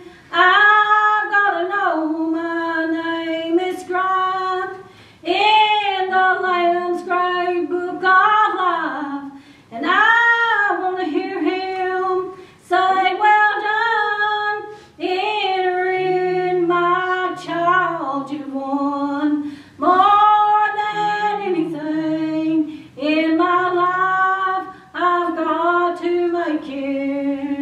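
A woman singing a slow song solo, in sung phrases of two to three seconds with short breaths between them.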